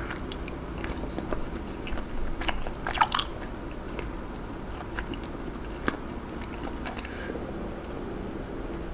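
Close-miked biting and chewing of a cheese corn dog, wet mouth sounds with scattered sharp clicks, thickest about three seconds in.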